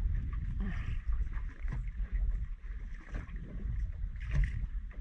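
Water slapping against the hull of a small drifting boat, with a low rumble of wind on the microphone and a few short knocks.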